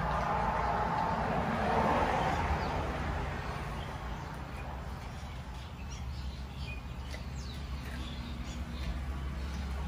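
Outdoor background of a steady low hum, with a swell of noise in the first few seconds, like a passing vehicle, and scattered short bird chirps from about four seconds in.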